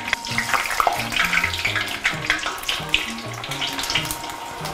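Hot oil bubbling and crackling steadily around a breaded chicken leg deep-frying in a saucepan.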